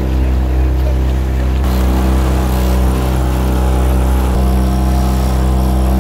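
Tohatsu outboard motor running at a steady speed as the small boat travels through choppy water, with the rush and splash of water over it. The hissing water noise grows louder about two seconds in.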